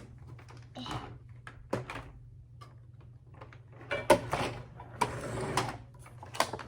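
Plastic clicks and rattles of a toy foam-dart blaster being handled and fitted together, with a sharp click about four seconds in and a brief rustle a second later.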